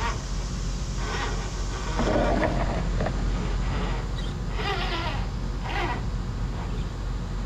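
Traxxas TRX-4 RC crawler's electric motor and gear drivetrain whining in short bursts, about one a second, over a steady low hum as it creeps over rocks, with a louder stretch a couple of seconds in.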